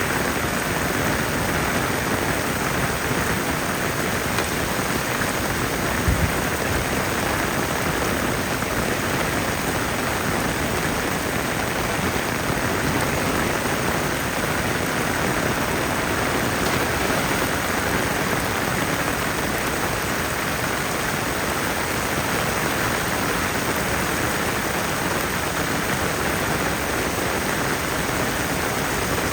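Heavy rain falling steadily, an even downpour hiss with no let-up; a brief low thump about six seconds in.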